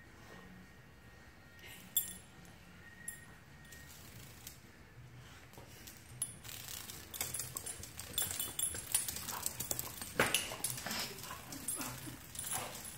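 A dog snuffling and nosing at a dragonfly on a hard floor: short scuffing, sniffing noises that grow busier and louder from about six seconds in, after two sharp clicks in the first few seconds.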